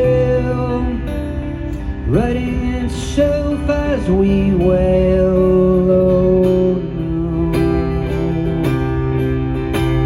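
Band music with guitar and singing: held notes and chords, with one note sliding sharply upward about two seconds in.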